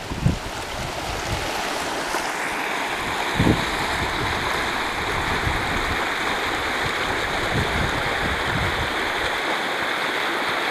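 The Fremont River's fast, muddy current rushing over shallow riffles, a steady rushing hiss. Wind buffets the microphone in low rumbles, with one stronger gust about three and a half seconds in.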